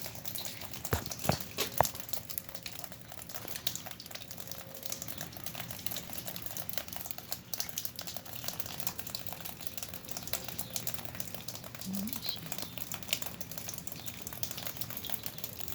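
Freezing rain mixed with ice pellets pattering on ice-coated surfaces: a dense, steady crackle of small ticks, with a few sharper clicks about a second in.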